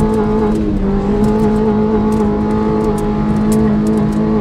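Corsa hatchback's engine held at high revs, its pitch staying steady, heard from inside the cabin while the car is driven hard.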